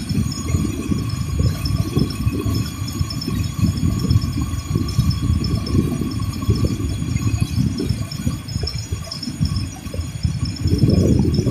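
Passenger boat's engine running steadily under a gusty low rumble of wind on the microphone, with a faint steady whine above it.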